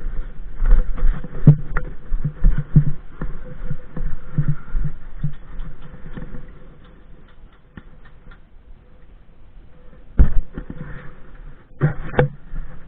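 Footsteps of a player on the move, a run of short low thuds about two a second with light rattling, easing off about six seconds in; a sharp knock about ten seconds in.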